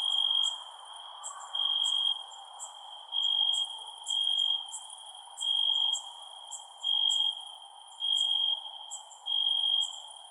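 Crickets chirping at night: a steady high trill that swells louder about once a second, with sharper, higher chirps scattered over it and a low steady hiss beneath.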